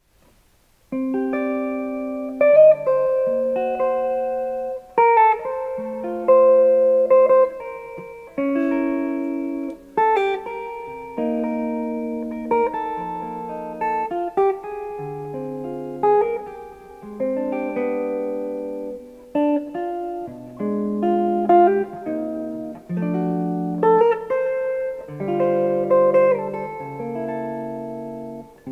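Solo jazz chord-melody played on a red Gibson semi-hollow-body electric guitar: a slow ballad of plucked chords with the melody on top, each chord left to ring and fade before the next, starting about a second in.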